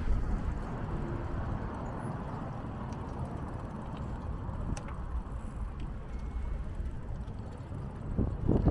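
Steady city street noise heard from a moving bicycle: a low rumble of traffic with no single dominant event, and a brief louder patch near the end.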